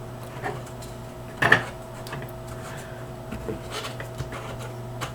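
Handling clicks and light knocks of 3D-printed plastic parts as a filter is fitted into the fume extractor's filter top, with one sharper knock about a second and a half in, over a steady low hum.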